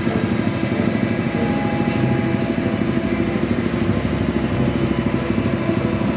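A small engine running steadily with a fast, even throb.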